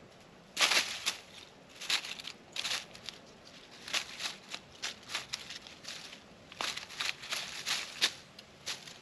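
Peanuts rattling and clicking on a plate as a feeding animal picks through them: irregular dry crackles and taps in short clusters, starting about half a second in.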